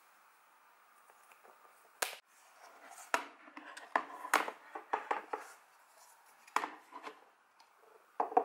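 Irregular light clicks and taps of art supplies being handled on a desk, thickest in the middle and with a louder knock near the end, over a steady faint hiss.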